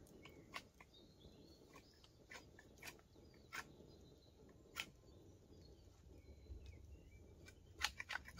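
Near silence with a campfire's coals crackling faintly: scattered sharp pops, a few clustered near the end.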